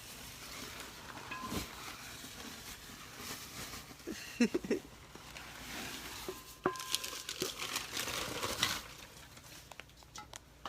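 Packing wrapping being crinkled and pulled off a hand-made Tibetan singing bowl: rustling, crackling and tearing, with scattered handling knocks and a brief ring a little past the middle.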